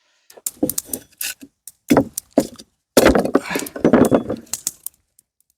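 Dry wood and branches cracking and snapping as they are handled or broken: a run of irregular sharp cracks, with a denser stretch of crackling and rustling about three seconds in.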